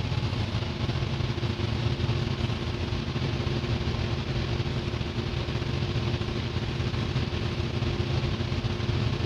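Steady drone of running engine-room machinery: a constant low hum with a steady mid-pitched tone over it, loud and unchanging.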